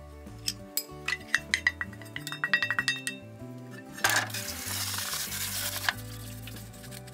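Metal utensil clinking and tapping against a pan, with a quick run of ringing clinks. Then about two seconds of sizzling as food is stir-fried in hot oil.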